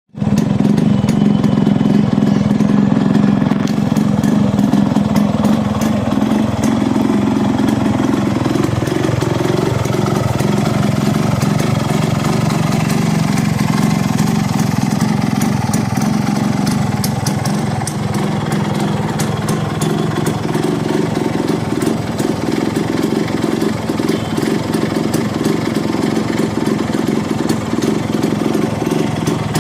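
Yamaha RX-G motorcycle's two-stroke single-cylinder engine running steadily through its stock exhaust.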